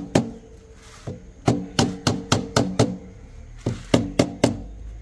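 Quick repeated strikes on metal, about four a second, each leaving a short ring. There is one hit at the start, a run of about seven, then a closing run of four.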